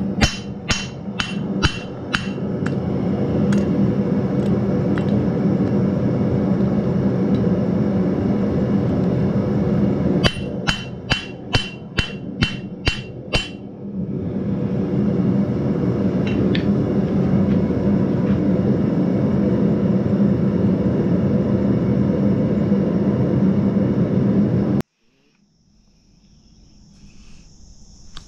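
Hand hammer striking a red-hot steel cross on an anvil: sharp ringing blows about two to three a second, one run in the first few seconds and another about ten seconds in, over a loud steady low hum. The hum cuts off abruptly near the end, leaving a faint high steady tone.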